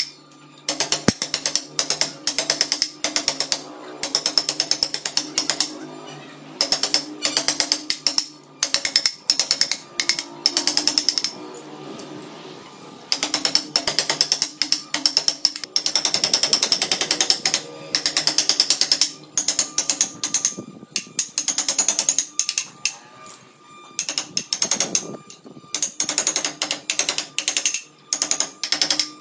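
A wooden mallet tapping a carving chisel into wood in quick runs of sharp knocks, several a second, with short pauses between runs.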